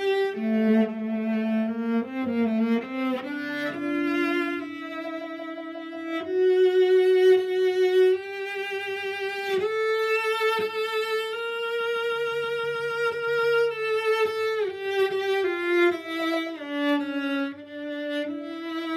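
Solo cello bowed in a slow, singing melody, mostly long held notes with vibrato in its upper register, with a run of quicker notes in the first few seconds.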